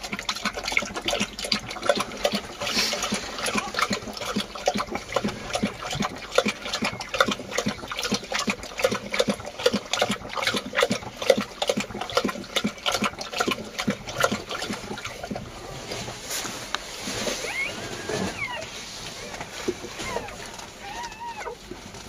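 A Kangal dog lapping lukewarm, watered-down mash from a plastic bowl in quick, repeated laps.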